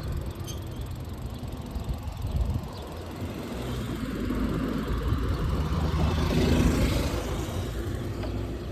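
Motorcycle engine running while riding, with wind noise on the microphone; the engine gets louder from about three seconds in, peaks near seven, then eases off.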